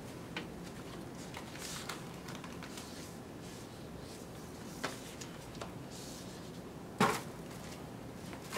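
Steady faint background with a few scattered small clicks and one sharper knock about seven seconds in.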